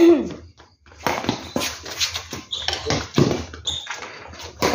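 Badminton rally on a concrete court: rackets striking the shuttlecock and players' quick footsteps and shoe scuffs make a dense run of sharp taps, with a few brief squeaks. There is a loud burst right at the start.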